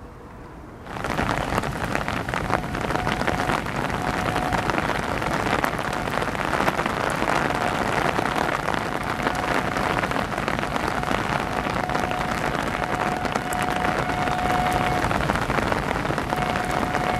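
Heavy rain falling on a railway platform and tracks, a steady dense hiss that starts suddenly about a second in. A faint held tone sounds over it several times.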